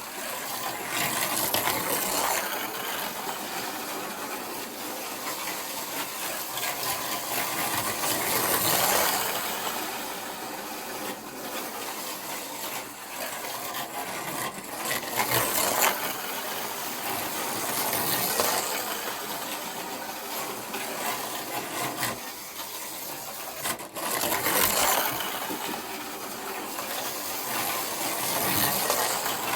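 Micro slot cars running laps on a plastic track: a rattly electric whir that swells and fades every few seconds as the cars come round.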